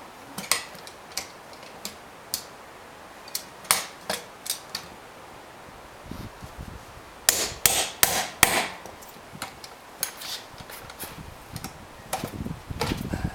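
Irregular sharp metallic clanks and knocks of steel tire pliers being levered and repositioned against a beadlock wheel's rim while the tire bead is pried loose. A burst of louder clanks comes just past the middle, with duller low thumps alongside.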